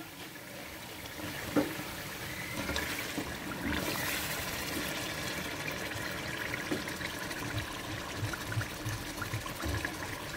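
Thick beef masala bubbling as it simmers in a steel pot, with soft scraping and ticks from a wooden spatula stirring it. There is a single short knock about one and a half seconds in.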